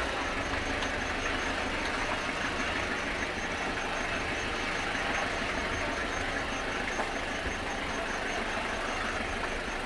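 Steady noise of a vehicle engine running, with a low rumble under an even hiss.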